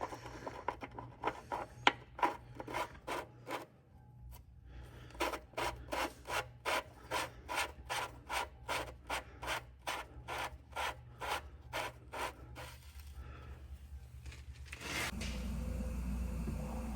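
Hand ratchet wrench run back and forth in quick rasping strokes, about two to three a second with a short pause about four seconds in, driving an oil-pan drain plug home. A steady low hum starts near the end.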